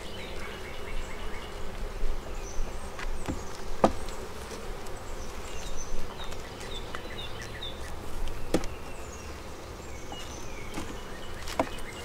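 Honeybees buzzing around an open hive, with three sharp clicks of a metal hive tool against the wooden frames as burr comb is scraped off the top bars.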